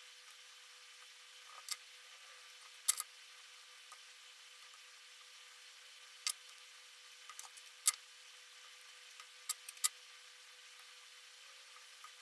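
Scattered sharp metallic clicks and ticks of small tools working stuck pins out of the chambers of a Zeiss Ikon SK6 lock cylinder. There are about a dozen, irregularly spaced, some in quick pairs, over a faint hiss.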